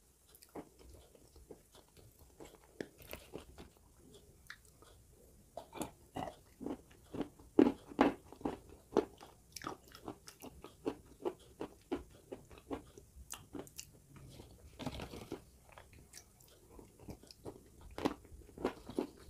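Close-miked chewing of dry mountain clay chunks mixed with clay paste: a run of crisp crunches, quickest and loudest a little before halfway, then sparser.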